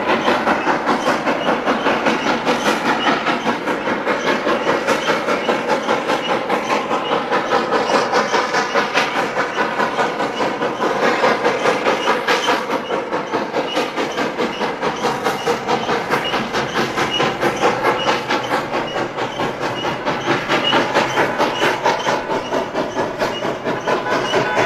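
1917 Baldwin 2-8-0 steam locomotive No. 81 working a passenger train, its exhaust chuffing in a fast, even beat of about three beats a second.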